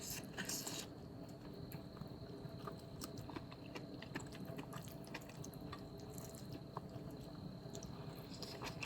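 Faint eating sounds: chewing and small wet mouth clicks at irregular moments, over a faint steady hum.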